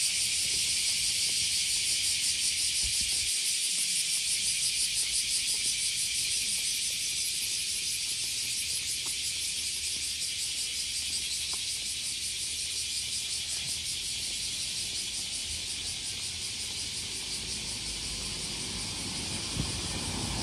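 Cicadas singing in a dense, high, pulsing chorus. A low rumble builds near the end.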